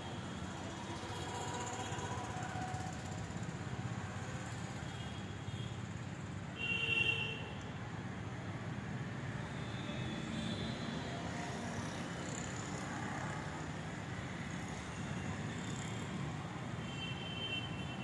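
Steady low background rumble with faint high tones coming and going, and a brief, louder high-pitched sound about seven seconds in.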